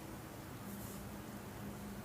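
Faint rustle of massage hands working over skin and hair, heard briefly under a steady low hum.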